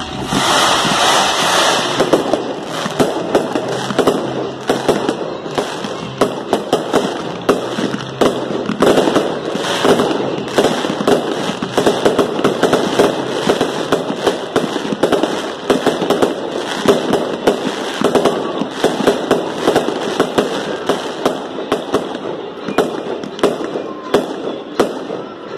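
Aerial fireworks display: a rapid, continuous barrage of shell bursts and crackling, several reports a second.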